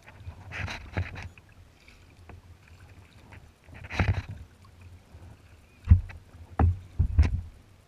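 Kayak paddle strokes splashing and dipping in the water, with three sharp thuds in the last two seconds.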